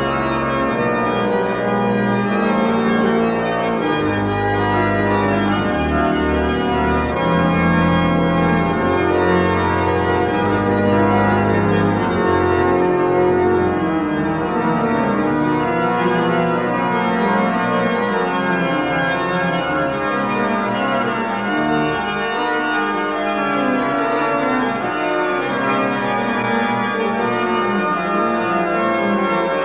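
Large church pipe organ, mostly dating from 1769, playing dense contrapuntal music: several voices move over long held low pedal notes, which are heaviest in the first half. Heard on a restored 1973 tape recording.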